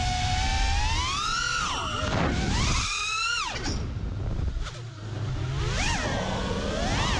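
FPV drone's T-Motor F60 Pro II 2700kv brushless motors whining, the pitch rising and falling with throttle. About three and a half seconds in the whine drops away as the throttle is cut, then climbs back in two quick surges near the end.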